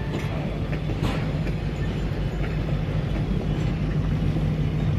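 Leadville Colorado & Southern excursion train rolling slowly past, with the steady low drone of its diesel locomotive's engine.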